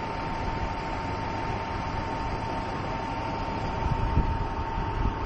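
Caterpillar motor grader's diesel engine running steadily at idle, with a thin steady whine above it. Wind buffets the microphone, with a few louder gusts near the end.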